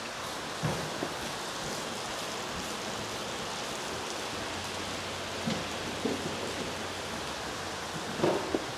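Steady rushing background noise, with a few brief faint sounds about a second in, midway and near the end.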